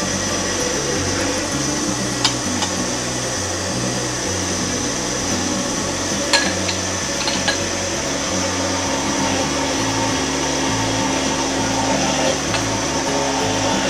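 Countertop blender running steadily, pureeing a sofrito of peppers, herbs and tomato while oil is poured in through the lid, with a few light clicks. Background music plays underneath.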